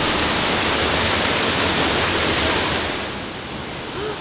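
Waterfall, a steady loud rush of falling water; about three seconds in it drops to a quieter, duller water sound.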